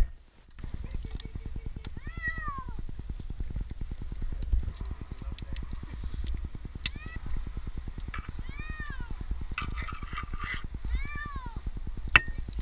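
An 8-month-old kitten stranded up a tree meowing three times, each call rising and then falling in pitch, with scattered small clicks between the calls.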